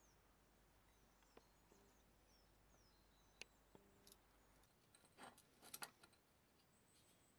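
Near silence: faint room tone with faint high chirps and a few light clicks. A short cluster of louder taps comes a little over five seconds in, as the steel bandsaw blade is handled and set against a metal jig.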